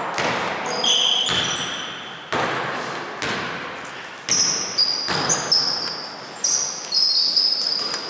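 Basketball being dribbled on a hardwood gym floor, bouncing about once a second, each bounce echoing through the hall, with sneakers squeaking sharply on the floor.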